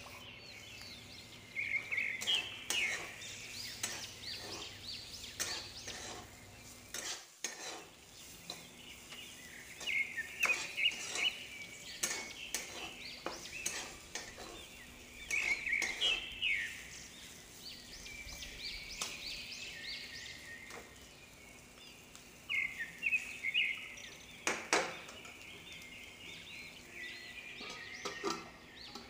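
Steel spatula stirring and scraping sliced pointed gourd (parwal) around a kadhai, in repeated bursts of scraping strokes over a light sizzle of frying. A sharp knock of metal on the pan stands out about 25 seconds in.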